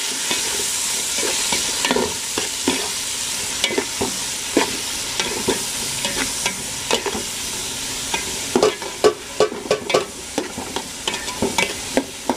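Shallots, onions and green chillies frying in hot oil in a metal pot with a steady sizzle, while a spoon scrapes and knocks against the pot as they are stirred; the scraping comes thicker in the last few seconds.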